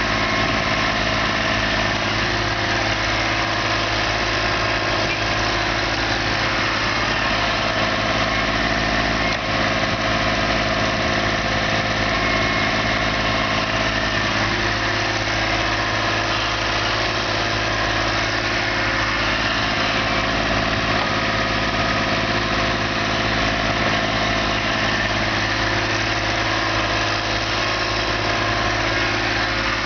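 Diesel engine of the working machinery running steadily at a constant speed, with no revving.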